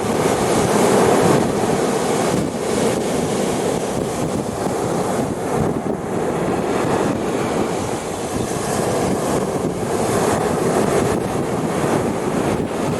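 Sea waves washing onto a beach, a continuous surf noise that swells and eases as each wave comes in.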